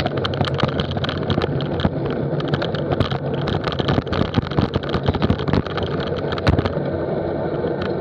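Wind and road noise on a bike-mounted action camera riding along with a group of road cyclists: a steady rushing rumble with frequent clicks and knocks throughout.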